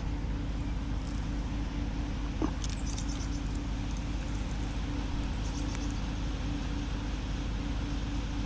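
Steady low outdoor background rumble with a faint constant hum, broken by a soft tap about two and a half seconds in and a few faint high chirps about three seconds in and again near six seconds.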